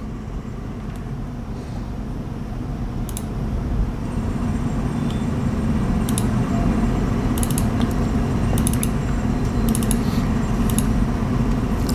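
A few short, sharp computer mouse clicks, scattered across the stretch, over a steady low background hum that grows a little louder about four seconds in.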